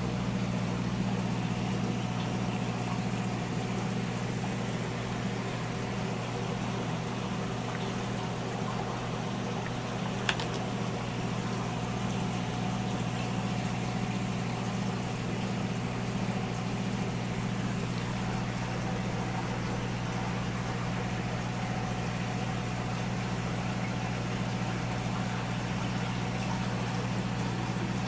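Steady electric hum of aquarium pumps with an even hiss of moving water and air bubbles. A single sharp click about ten seconds in.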